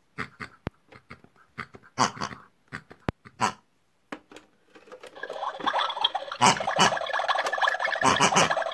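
Comic pig-like vocal noises voicing toy pig puppets: a few short separate sounds at first, then from about five seconds in a fast, continuous chattering.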